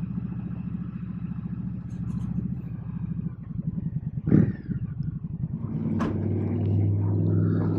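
2021 Indian Scout Bobber's V-twin engine running at low speed as the bike pulls in, then running more steadily from about halfway. A short loud sound comes about four seconds in and a sharp click about six seconds in. Heard through a helmet communicator microphone.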